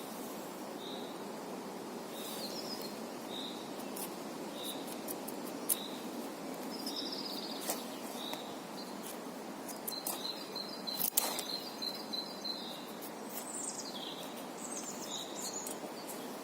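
Mora 2000 knife shaving a stick into feathers: scattered short scrapes and clicks, the sharpest about eleven seconds in, over a steady background hum. A bird chirps about once a second and trills between about ten and thirteen seconds in.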